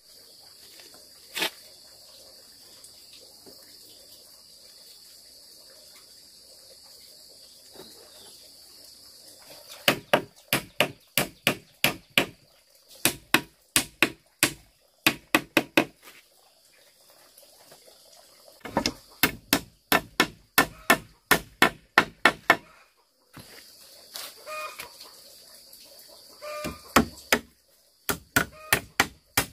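Runs of quick, evenly spaced tool blows on wood or bamboo, about three a second, with pauses between runs. A chicken clucks a few times in the background over a steady high hiss.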